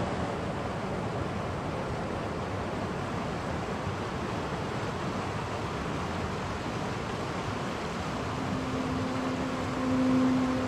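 Steady rush of whitewater in a rocky mountain stream. About eight seconds in, a low held musical note comes in and swells near the end.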